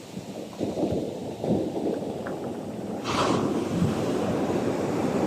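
Ocean waves washing onto the shore, with wind buffeting the microphone. The sound builds up, and a wave breaks with a louder rush about three seconds in.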